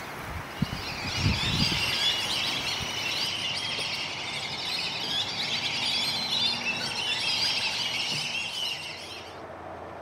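A flock of birds chattering: many overlapping high chirps and squeaky calls at once, fading out shortly before the end. A few low rumbles come in the first couple of seconds.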